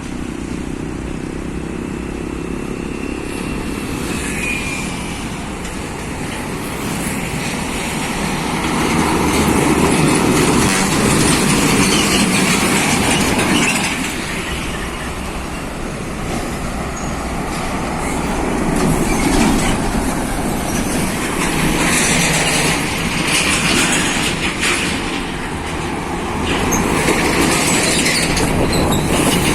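Heavy trucks passing close by: a continuous rumble of engines and tyres with rattling trailers, swelling and fading as each vehicle goes past.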